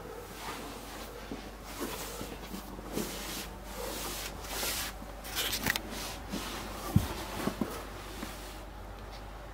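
Handling noise from a handheld camera being moved: irregular rustling and soft knocks, with one sharper knock about seven seconds in, over a steady low hiss.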